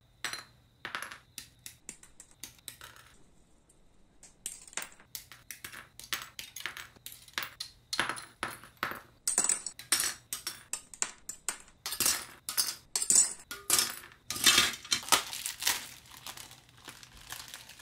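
Many short sharp clicks and snips of hard plastic model-kit parts being cut from the sprue with nippers and handled on a cutting mat. Near the end comes a denser rustle as a clear plastic parts bag is crinkled.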